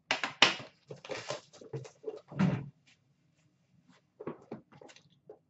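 Metal tin card box (Upper Deck The Cup hockey) handled and set down: a quick run of clicks and knocks, a loud deep thump about two and a half seconds in, then a few light taps near the end.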